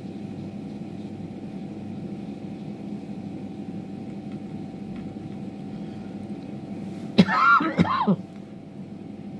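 A person clearing their throat once, loudly, for about a second near the end, over a steady low hum.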